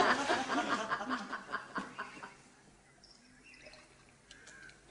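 Studio audience laughter, dying away over the first two seconds into near quiet.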